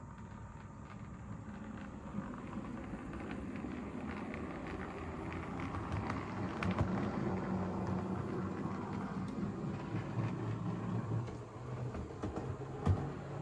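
Bachmann 00 gauge Class 47 model diesel locomotive running on DC: a steady motor hum and wheel noise on the rails with light clicks. It grows louder over the first several seconds as the loco comes nearer.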